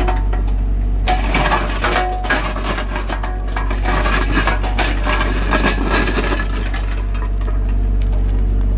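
Mini excavator's diesel engine running steadily under a drone, while its steel bucket scrapes and digs into gravel and broken asphalt, stones clinking and rattling against the bucket. The clatter is busiest through the middle and eases near the end.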